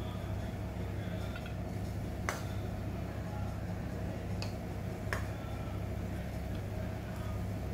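A few sharp clinks of a plate and pot as cooked koshari is scooped by hand onto the plate, over a steady low hum.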